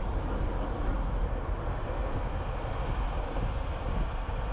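Wind rushing through the open cabin of a Ford Mustang convertible on the move, buffeting the microphone over a steady low rumble of road and engine noise.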